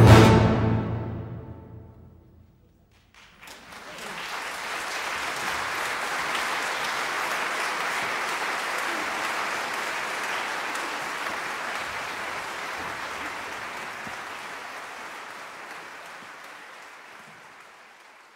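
A symphony orchestra's final loud chord is cut off and rings away in the hall's reverberation. After about a second of near silence, the audience breaks into applause, which holds steady and then fades out near the end.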